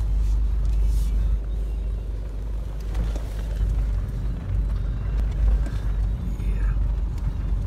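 Off-road vehicle's engine and drivetrain rumbling, heard from inside the cab while crawling over a rough dirt track; a steady, heavy low rumble.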